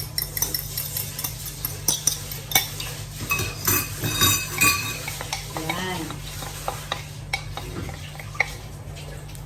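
A utensil stirring a pan of mushroom sauce, with quick knocks and scrapes against the pan that are busiest in the first five seconds and then thin out, over a steady low hum.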